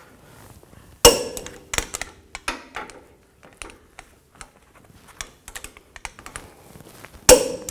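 Click-type torque wrench tightening the rear brake caliper bracket bolts to 132 foot-pounds: two sharp clicks, one about a second in and one near the end, as each bolt reaches torque, with lighter clicks of the wrench being worked in between.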